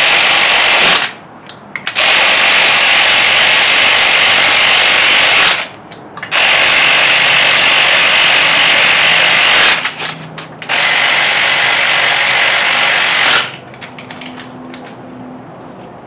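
Handheld power driver spinning ARP head bolts down into a small-block Chevy 350 to snug the cylinder heads, in four steady runs of a few seconds each with short pauses between them. The last run stops about 13 seconds in, and light clicks and taps follow.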